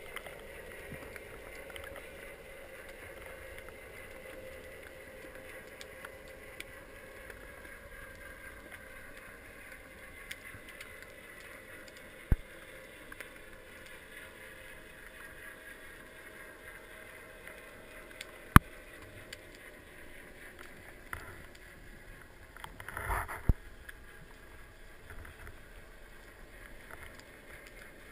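Underwater ambience heard through an action camera's waterproof housing: a steady dull hiss with a faint drone that slowly falls in pitch over the first ten seconds. Two sharp clicks come about twelve and eighteen seconds in, and a short rough rush of noise comes about twenty-three seconds in.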